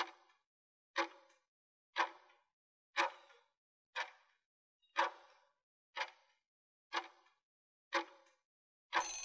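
Countdown timer sound effect: clock ticks, one a second, nine in all, each fading quickly. About nine seconds in, as the count runs out, a short harsher sound about half a second long cuts off abruptly.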